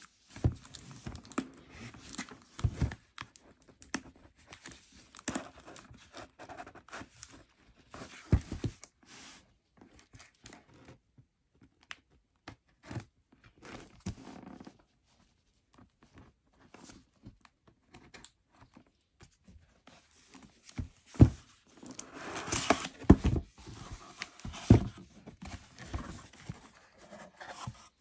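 A cardboard shipping box is handled and opened: packing tape is slit with a blade and torn, with cardboard flaps scraping and crinkling. The handling sounds come unevenly with pauses, and a cluster of sharper knocks and louder tearing falls about three-quarters of the way through.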